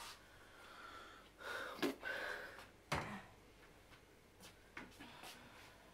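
Someone rummaging through kitchen cupboards: two sharp knocks about two and three seconds in, with quieter handling and scraping around them.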